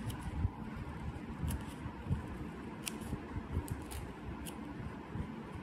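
Metal scissors cutting through folded paper: short, crisp snips, one every second or so, over low handling rumble.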